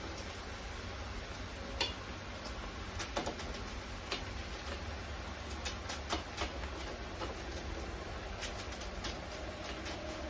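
Knife cutting pieces off a hand-held head of cabbage, with irregular crisp snaps as pieces come away and drop into the pot, over a steady low hum.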